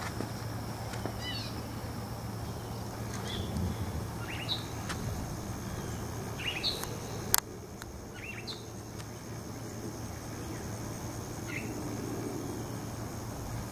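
Lakeside woodland ambience: scattered short bird chirps over a steady high insect drone and a low steady hum. A single sharp click about seven seconds in.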